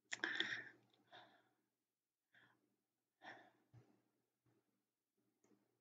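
A woman sighs heavily just after the start, then takes several short, quieter breaths with pauses between them.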